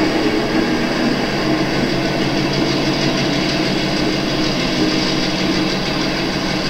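Model Penn Central diesel locomotives rolling slowly past with a steady engine sound.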